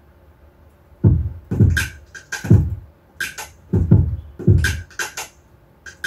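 Soloed electronic drum track from an Ableton Live Drum Rack playing back, starting about a second in. Deep 808-style kicks drop quickly in pitch, mixed with crisp hi-hat and clap hits in a loose beat.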